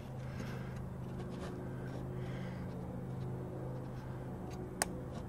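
A steady low hum throughout while a spring hose clamp is worked with slip-joint pliers onto a rubber transmission cooler hose, with one sharp click near the end.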